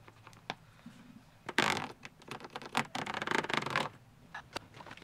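A marker pen scratching across ribbed plastic bunk wrap: a short scratch about one and a half seconds in, then a longer rasping stroke with quick zipper-like ticks as the tip runs over the ridges, about three seconds in.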